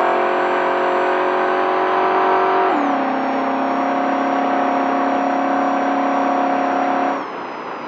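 Desert race truck's engine running hard at steady revs, its pitch stepping down with a gear change about three seconds in. Near the end the engine note falls away and the sound drops to a quieter rumble.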